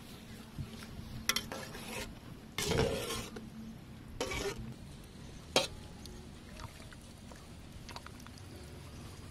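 Metal spoon scraping and clinking against a stainless steel pot while skimming and stirring simmering eel soup: a few short scrapes, then one sharp clink a little past halfway, and a few faint ticks after.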